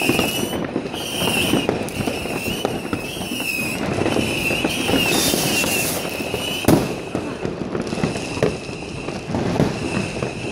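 New Year's Eve fireworks going off all over a city neighbourhood: a dense crackle of firecrackers with the bangs of bursting rockets, one louder bang about two-thirds of the way through. A high, regularly wavering whistle runs through most of it and fades near the end.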